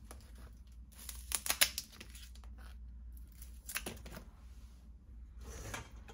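Kitchen scissors snipping through raw crab shell and legs: sharp crunching clicks in three short clusters, the loudest about a second and a half in.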